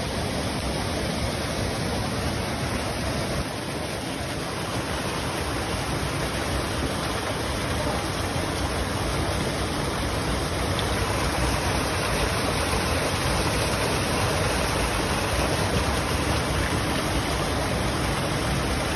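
Steady rushing of running water in a trout pond, growing slightly louder in the second half.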